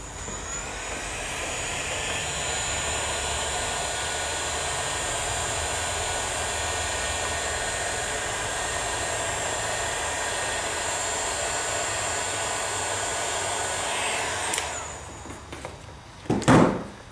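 Ozito electric heat gun running with a steady blowing whine while it shrinks heat-shrink tubing over a soldered wire joint, then switched off and winding down about fourteen seconds in. A short loud knock follows near the end.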